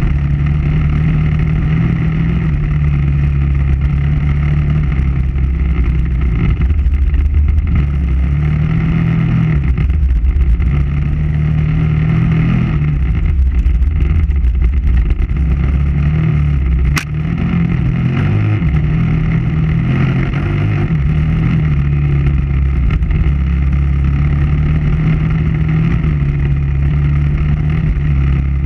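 KTM 990 Adventure R's V-twin engine running under way, its pitch rising and falling repeatedly with throttle and gear changes. A single sharp click comes about 17 seconds in, as the engine briefly drops off.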